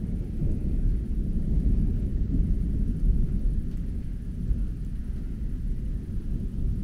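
Distant thunder: a long, low rolling rumble that continues throughout, swelling slightly a couple of seconds in.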